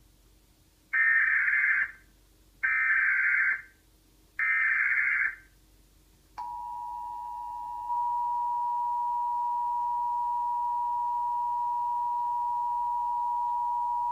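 Emergency Alert System tones: three short bursts of digital header data, then the steady two-tone attention signal, which starts about six seconds in and steps up in loudness a second and a half later.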